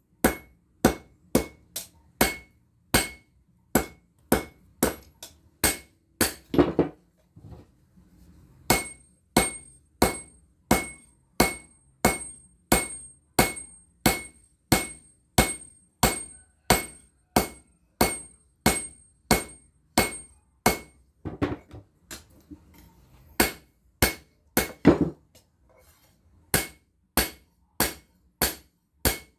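Hand hammer blows on a red-hot bearing-steel blade on a steel anvil, forging a slaughter knife: a steady rhythm of about two strikes a second, most with a bright metallic ring. There is a short break about seven seconds in, and a few blows sound heavier and duller.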